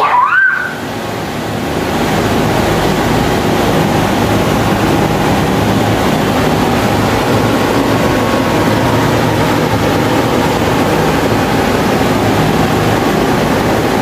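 Electric pedestal fan running at speed with a large propeller spinner held in its airflow: a steady, loud rush of air with a faint low hum. A short rising whistle comes right at the start, then the rush dips briefly and builds back up over the next second or so.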